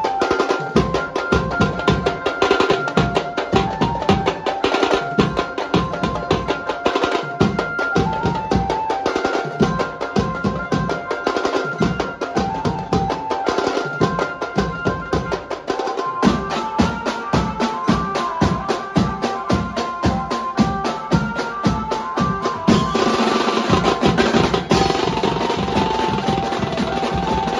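Banjo party playing live: a fast, dense beat on toms, snare-type drums, side drum and cymbals under a stepping, sustained banjo melody, amplified through horn loudspeakers. About 23 seconds in, a brighter cymbal wash comes in on top.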